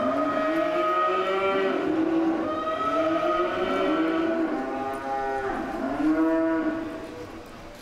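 Several cattle bawling, their long calls rising and falling in pitch and overlapping one another. The calls die away near the end.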